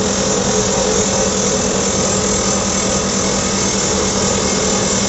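Excavator-mounted PD-90 hydraulic rock drill drilling steadily, with rapid hammering and a constant machine hum.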